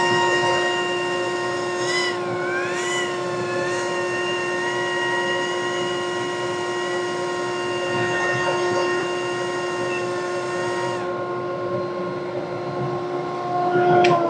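Single-stage bag dust collector running steadily, a whine with a rush of air blowing out the end of a 12-foot flex hose; the higher tones waver and then drop away about eleven seconds in. Just before the end a click, and the collector's pitch starts to fall as it is switched off and winds down.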